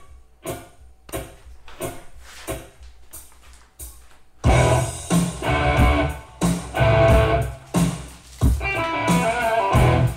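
Background music with a steady beat, quiet for the first few seconds and then much louder and fuller from about halfway through.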